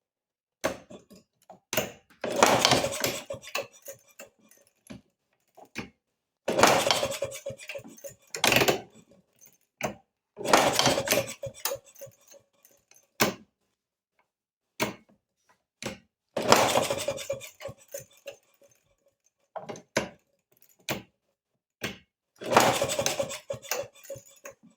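A 1932 Maytag two-stroke single-cylinder engine being cranked over again and again: about five clattering bursts, each a second or so long and about four seconds apart, with single knocks between them. It turns over without catching and running.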